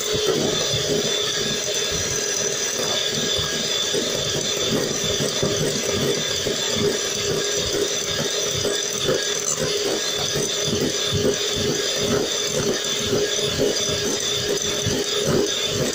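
Electric hand mixer running steadily, its beaters whipping a white cake mixture in a glass bowl, with a constant motor whine and quick repeated rattling as the beaters are moved around the bowl.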